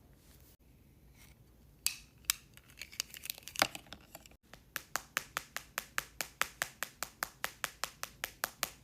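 A series of sharp clicking taps, a few scattered ones at first, then a steady run of about five a second for the last four seconds.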